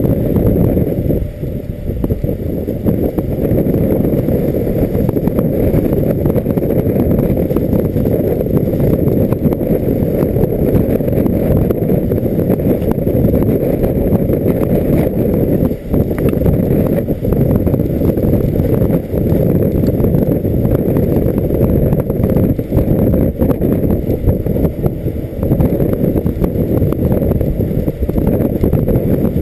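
Ford F-250 Super Duty pickup driving over a rough prairie two-track, heard as a loud, steady low rumble of wind and road noise on a camera mounted outside the truck by the front wheel.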